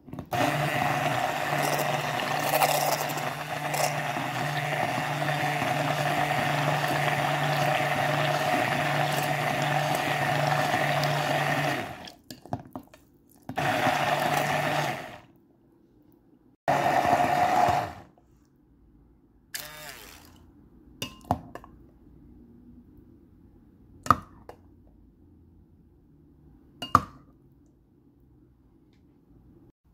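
Immersion (stick) blender running in a glass measuring jug of garlic, lemon juice and oil, whipping it into a thick garlic-cream emulsion. It runs steadily for about twelve seconds, then in two short bursts, followed by quieter handling and two sharp clinks near the end.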